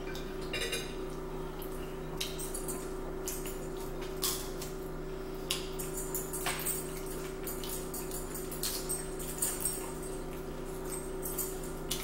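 Cutlery clinking and scraping on plates during a meal: scattered light clicks over a steady low hum.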